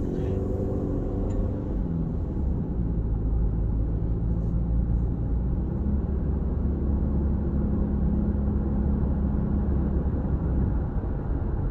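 2017 Subaru Outback's 2.5-litre flat-four engine and road noise while driving: the engine note rises in the first second or so as the car pulls away, then settles into a steady low rumble.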